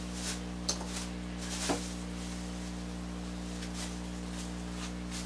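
A spoon scraping seeds and stringy pulp out of a halved butternut squash, in a few short scrapes, the strongest a little under two seconds in, over a steady low hum.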